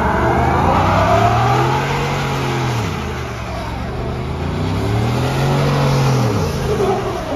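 Ford F-150 pickup doing a burnout: the engine revs hard while the rear tyres spin and smoke against the pavement, the revs climbing and dropping back twice.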